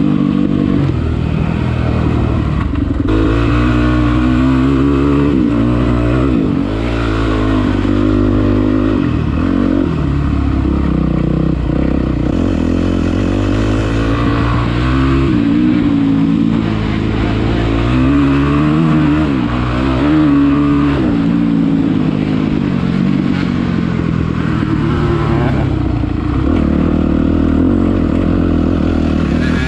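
Dirt bike engine being ridden hard, revving up and down again and again as the throttle opens and closes.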